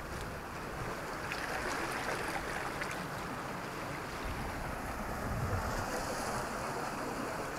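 Sea surf washing on the shore, with wind rumbling on the microphone.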